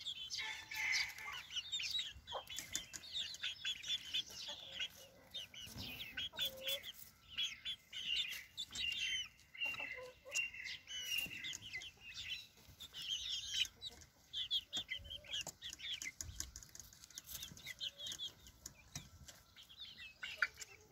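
A flock of young hens chirping and trilling in short, high, overlapping calls throughout, with scattered clicks and rustles as they peck at dandelion leaves.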